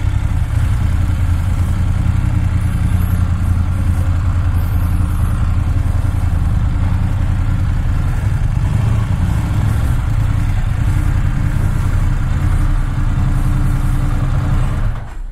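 BMW GS Adventure motorcycle engine running steadily, a deep even drone with no revving; it cuts off abruptly near the end.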